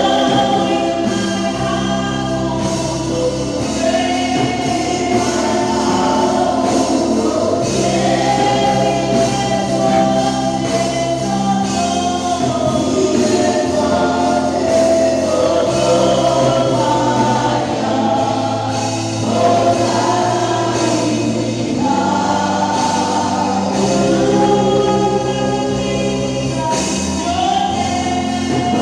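A choir singing a gospel song, several voices together over steady bass notes.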